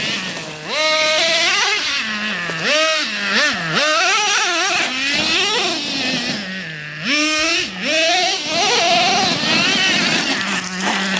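Small gas-powered RC car engine revving up and down over and over as the car is driven, its pitch repeatedly rising and falling, then holding a steady pitch near the end.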